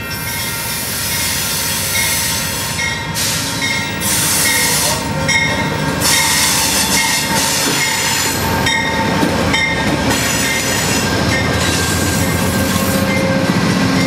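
Amtrak GE Genesis P42DC diesel locomotive and its passenger cars rolling slowly into a station close by, with squealing wheels and a short high tone repeating about every half second from a few seconds in until near the end.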